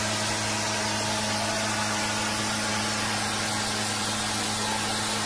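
Tractor diesel engines running hard as they pull against each other on a tow rope: a constant drone over a broad, even hiss.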